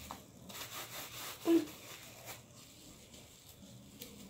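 Gloved hands and a comb working hair dye through hair, giving a faint soft rubbing. One brief louder sound comes about a second and a half in.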